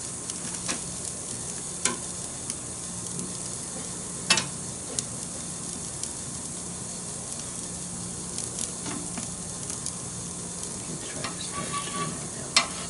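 Steady hiss of an Ooni pizza oven's gas burner flame, with a few short, sharp clicks and taps as a metal turning peel works the pizza on the oven's stone.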